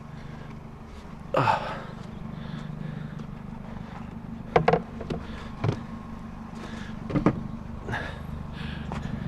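A car engine idling steadily, with a loud scrape falling in pitch about a second and a half in and several sharp knocks and clunks later on, the sound of salvaged junk being handled and loaded.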